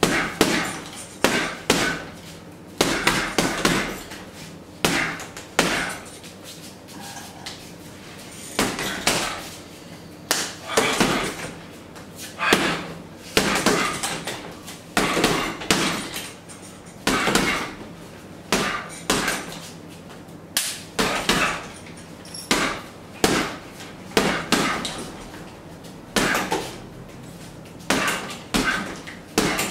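Boxing gloves punching a hanging heavy bag in quick combinations of two to four blows, with short pauses between them.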